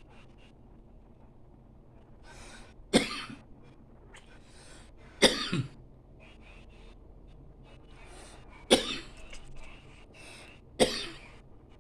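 A person coughing four times, sharp single coughs a couple of seconds apart, one of them a quick double.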